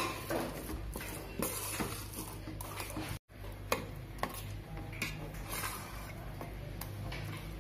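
Metal spoon scraping and stirring in a metal pan, with scattered clicks and knocks, as the thick sweet chana dal and jaggery filling for poli is stirred. The sound breaks off briefly about three seconds in.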